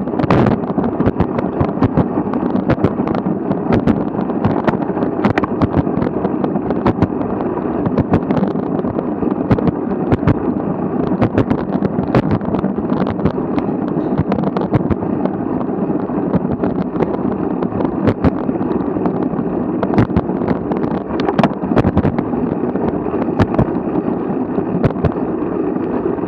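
Road bicycle riding over cracked asphalt: a steady rush of wind and tyre noise, broken by a dense, irregular run of knocks and rattles as the wheels hit cracks that run across the path.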